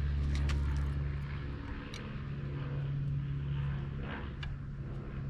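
A steady low mechanical drone, like a motor running in the background, with a few short light clicks over it.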